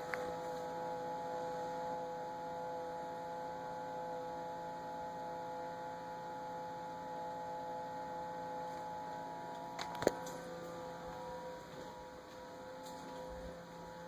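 Samsung refrigerator running with a steady, multi-tone whine and hum, the noise the owner is complaining about; a single sharp click about ten seconds in.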